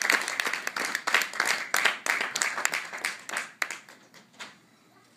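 Audience applause, the claps thinning out and dying away about four seconds in.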